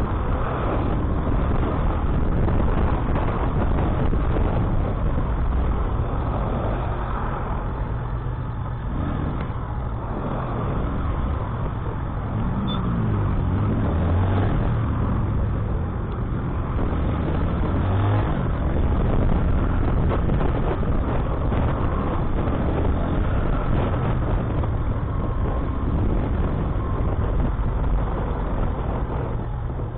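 Bajaj Boxer motorcycle's single-cylinder four-stroke engine running at low speed, with tyre and road noise on wet tarmac, while filtering through stopped traffic. An engine note swells and falls around the middle as the bike passes close alongside a bus.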